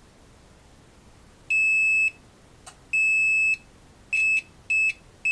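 Multimeter continuity beeper sounding as the probes touch a via and trace: a high steady beep, twice long and then three times short as contact is made and broken. The beeps confirm continuity, showing that the via connects to the damaged, broken trace.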